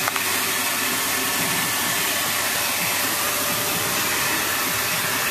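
Car wash vacuum running, a steady loud rush of suction through the hose as it cleans the van's floor.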